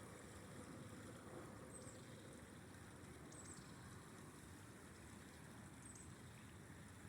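Faint, steady rushing of a flowing river. A few brief high-pitched chirps show up about two, three and a half and six seconds in.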